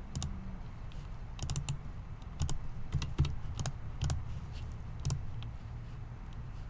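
Scattered computer keyboard and mouse clicks, about ten sharp taps at irregular intervals, with a cluster of quick ones about a second and a half in, over a low steady hum.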